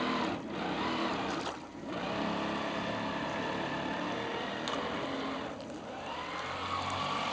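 Radio-controlled model speedboat's motor running with a steady whine, easing off briefly twice.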